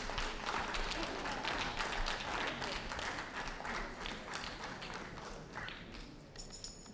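Audience clapping, which dies away toward the end.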